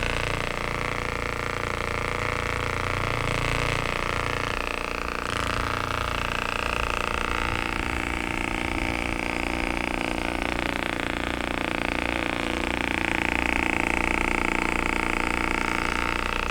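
Percussion massage gun running steadily, its motor humming as it works on tense muscles.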